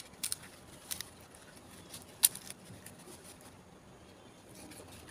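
Banana leaf rustling and crackling as it is handled and folded by hand, with several short sharp clicks, the loudest a little past two seconds in.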